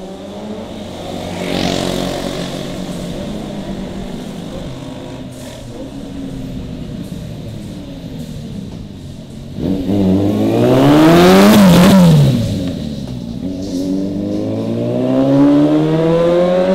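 Custom Suzuki 750 motorcycle engine with a modified exhaust, accelerating and revving while being ridden. Its pitch climbs and eases several times. The loudest is a sharp rise and fall about ten seconds in, and it climbs again near the end.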